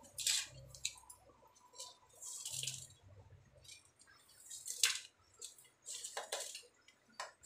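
Light clicks, taps and rustles of whole spices being picked up by hand from a steel plate, with a few brief scraping swishes between them.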